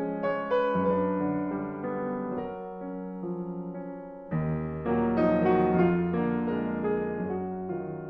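Solo piano playing a slow, gentle passage of single notes and chords, with a fuller, louder chord struck about four seconds in.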